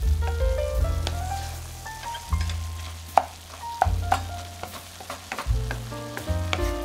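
Pork mince sizzling in a pan while a wooden spatula stirs it, with sharp clicks of the spatula against the pan, the sharpest about three seconds in. Background music with a stepping melody and low bass notes plays throughout and is the loudest part.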